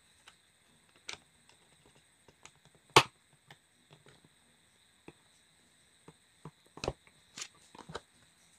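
Scattered small clicks and taps of a test lamp's wire ends being poked into the plastic socket holes and the bulb being handled, with one sharp, much louder click about three seconds in and a few more near the end. A faint steady high whine sits underneath.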